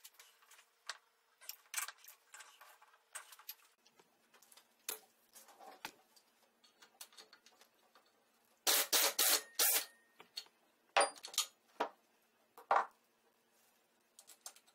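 Scattered clinks and knocks of metal tools and parts, then a cluster of short, loud bursts from a pneumatic wrench on the engine's exhaust bolts a little past halfway, followed by three sharp knocks.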